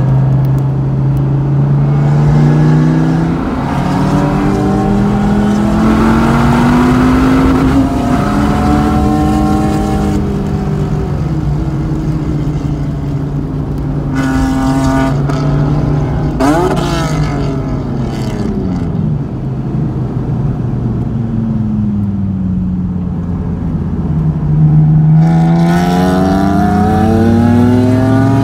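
Dodge Viper's V10 engine under hard track driving: it pulls up through the revs, drops back with each gear change or lift for a corner, and climbs again. There is a quick rev blip about two-thirds of the way through, then a long fall in pitch, and a strong pull near the end.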